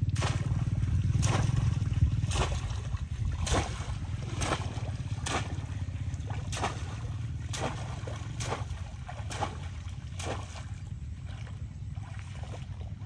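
Repeated splashing in shallow water, about one splash a second and fainter toward the end, over a steady low rumble.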